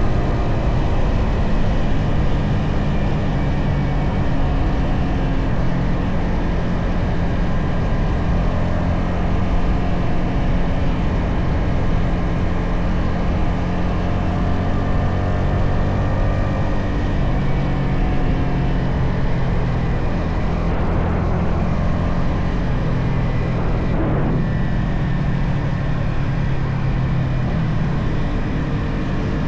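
Yamaha XSR 155's single-cylinder engine running steadily under way through its stock exhaust, with a constant rush of air over the moving bike.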